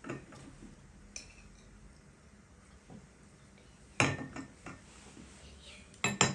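Metal cutlery clinking on a china plate as cake is eaten: a few sharp clinks with a short ring, the loudest about four seconds in and two quick ones near the end.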